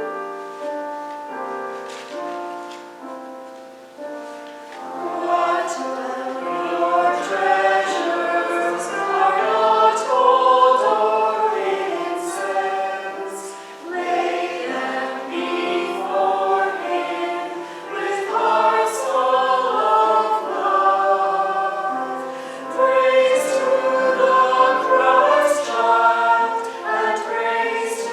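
Church choir singing a Christmas anthem with keyboard accompaniment. A few seconds of the keyboard alone lead in, and the voices enter about five seconds in.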